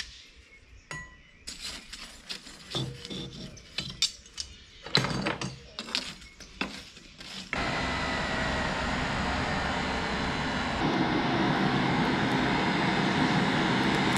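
Scattered clinks and scrapes of steel against charcoal and brick as a saw-blade knife blank is pushed into a charcoal forge. About halfway through, an electric blower feeding air into the forge through a hose starts with a steady rush. It gets a little louder later on and cuts off abruptly at the end, while the coals flare up.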